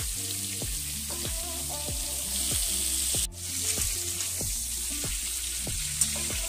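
Pointed gourd and potato pieces sizzling as they fry in oil in a wok, stirred with a metal spatula, under background music with a steady beat. The sound briefly drops out a little over three seconds in.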